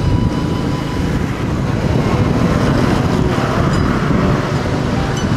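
Steady low rumble of a motorcycle on the move: wind buffeting the microphone over engine and road noise.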